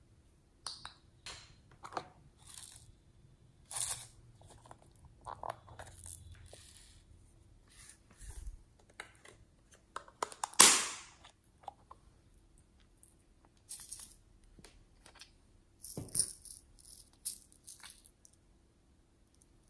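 Small plastic containers and toys handled by hand: scattered clicks, taps and short rattles of lids and beads, with one louder clack about halfway through and a quick run of clicks near the end.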